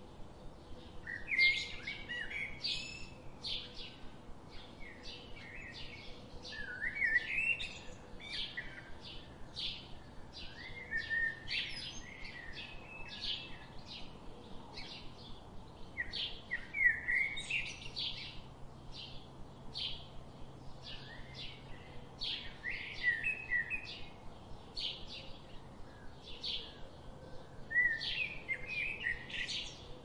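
Birds chirping and singing: a steady run of short high chirps about twice a second, with brief busier twittering phrases every few seconds.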